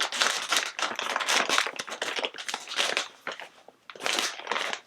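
Crinkly snack bag being torn open at its tear tab and handled, dense crackling for about three seconds, then a shorter burst near the end.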